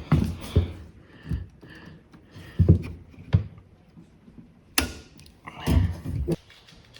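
A series of separate thuds and knocks, with a sharp click about five seconds in.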